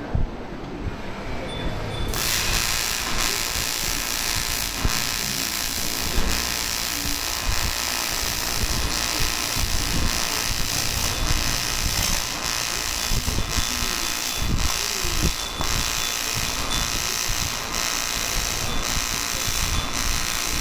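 AC TIG welding arc on aluminium: a steady buzzing hiss that starts suddenly about two seconds in and holds without a break.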